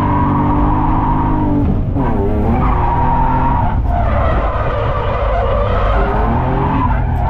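BMW E36's M52B28 straight-six held at high revs, heard inside the cabin, with the rear tyres squealing through a drift. About two seconds in, the revs dip and swing back up, then hold steady again with the tyre squeal.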